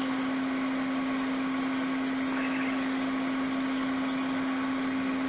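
Steady hum of a small electric blower, a constant low tone over an even whirring hiss.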